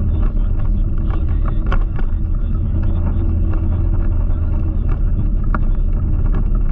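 Steady low rumble of wind buffeting the microphone and tyres rolling on tarmac, heard from an electric scooter being ridden, with a few small rattling clicks.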